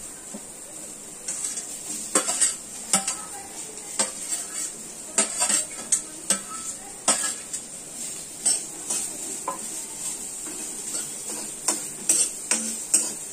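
Steel spoon clinking and scraping against a steel plate and a kadhai as sliced onions are pushed into the pan and stirred, in sharp irregular clinks a bit over one a second.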